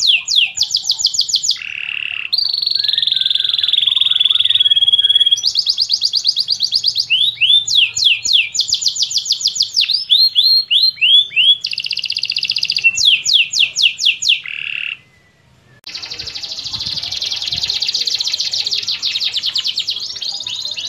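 Domestic canary singing phrase after phrase of fast repeated notes and rolling trills, each tour a quick run of identical high sweeps. A short pause about fifteen seconds in is followed by a long, fast rolling trill.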